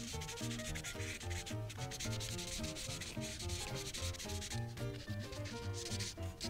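Prismacolor marker scribbling on paper in quick back-and-forth strokes, filling in a large area, over background music with a pulsing bass line.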